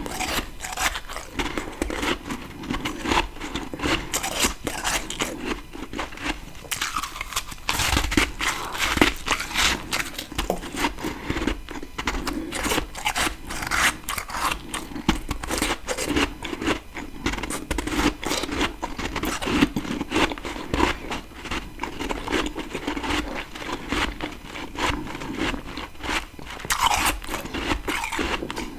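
Close-miked biting and chewing of freezer frost: a continuous run of dense, crackly crunches and scrapes, with louder bites now and then.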